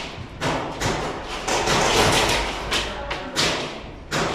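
A series of irregular thumps and knocks, a few each second, with a denser stretch of noise about two seconds in.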